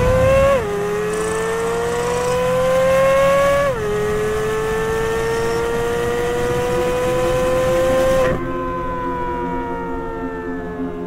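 Corvette Z06's 5.5-litre flat-plane-crank LT6 V8 accelerating through the gears. The engine note climbs and drops sharply at quick upshifts, about half a second in and again near four seconds. It then rises slowly in one gear, and in the last few seconds the pitch falls away steadily as the car comes off the throttle.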